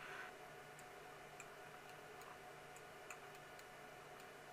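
Near silence: low steady room hum with a few faint, sparse clicks from a computer keyboard and mouse.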